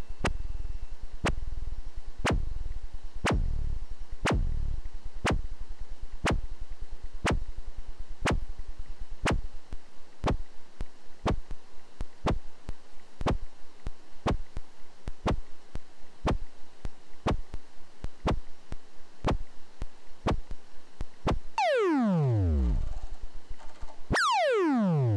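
Eurorack modular synthesizer patch played through a DIY envelope generator: a regular train of short, clicky percussive blips. Early on each blip has a low thumping tail that shortens to a dry click as the envelope is adjusted. Near the end come two long tones that sweep down in pitch from very high to very low over about a second each.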